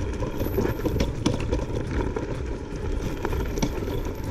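Langfeite L8S electric scooter riding down a rough dirt slope: a continuous rumble with irregular rattling and knocking as it goes over bumps.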